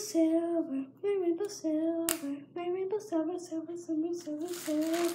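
A girl singing a wordless tune to herself in a string of short held notes that step up and down, with one sharp click about two seconds in.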